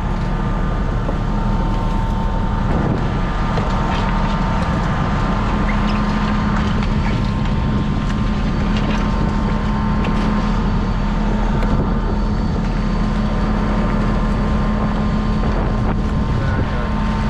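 Fishing boat's engine running steadily with a constant hum, wind on the microphone and a few light knocks from gear being handled on deck.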